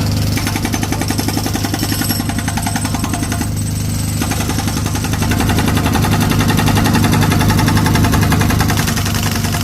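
Road-works machinery: an engine running steadily under a rapid, even mechanical hammering rattle, which gets somewhat louder in the second half.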